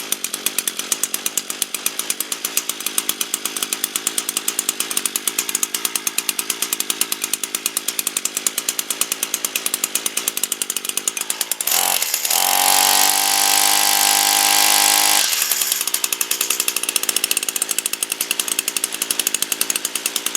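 Echo string trimmer's small two-stroke engine running at idle, with fast, even firing pulses. About 12 seconds in it is revved up to a steady high-speed whine for a few seconds, then drops back to idle: the trimmer, which had a no-start fault, is now starting and running.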